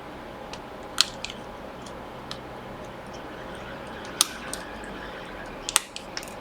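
A few scattered sharp clicks and light taps from small parts and tools being handled while an iPhone 6's LCD is fitted back on, the loudest about a second in and about four seconds in, over a faint steady hum.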